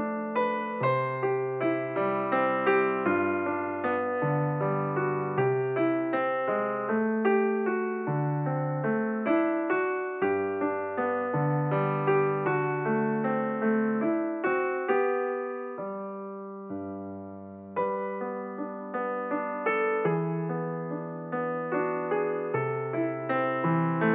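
Background music: a slow solo piano piece, its notes struck one after another in a steady, flowing pattern. About two-thirds of the way through the notes die away briefly before the melody picks up again.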